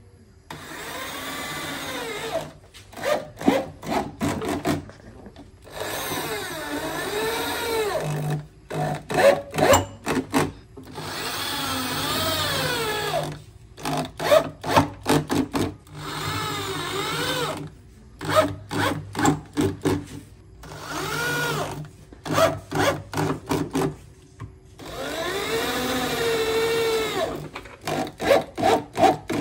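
Cordless drill driving screws through a subwoofer driver's frame into the wooden baffle: repeated runs of one to two seconds with the motor whine rising and falling, each ending in a string of rapid clicks as the screw seats.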